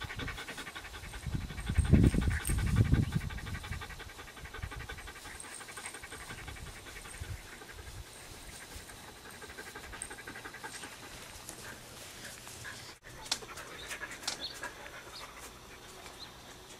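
An adult poodle panting rapidly, with a few loud low rumbles about two to three seconds in. Later come scattered light clicks and taps.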